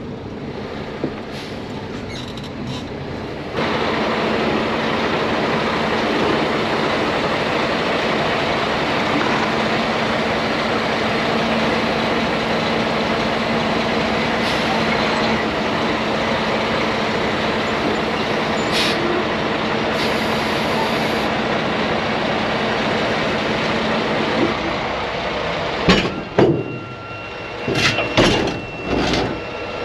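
Semi truck driving, a steady drone of engine and road noise that gets louder about three and a half seconds in. Several loud, sudden sounds break in near the end.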